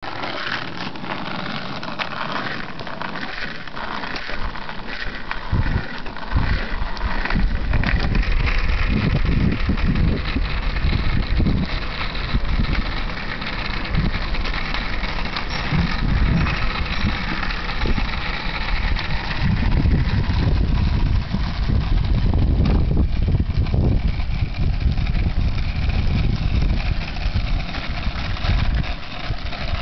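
Two skateboards' wheels rolling over rough asphalt: a steady low rumble that grows louder about six seconds in.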